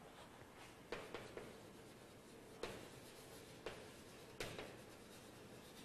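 Chalk writing on a blackboard: faint scratching broken by a handful of sharper taps of the chalk striking the board.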